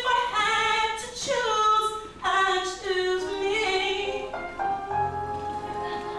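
A woman's voice singing unaccompanied into a handheld microphone. About four seconds in, the singing gives way to instrumental music with held chords, and a bass line enters about a second later.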